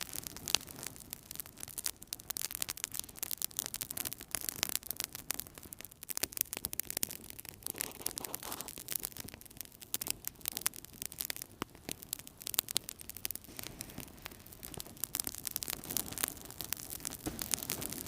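Wood fire burning in a fireplace, crackling steadily with many sharp, irregular pops and snaps over a soft hiss.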